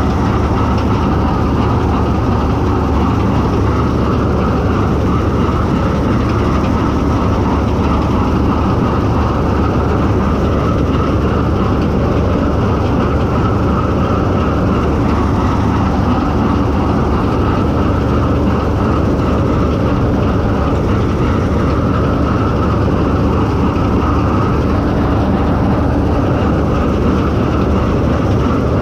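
Bizon Z056 combine harvester running steadily while harvesting triticale: its diesel engine and threshing machinery heard from the operator's position, one unbroken, even drone.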